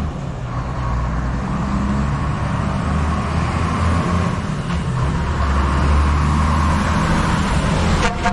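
Chicken bus, a converted school bus, with its engine running in a steady low drone amid street traffic noise, growing louder a few seconds before the end.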